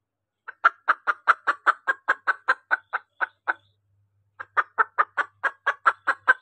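Junglefowl hen clucking in two rapid runs of short clucks, about five a second. The first run slows slightly toward its end, and the second starts after a pause of under a second. This is the hen's call used to lure a male.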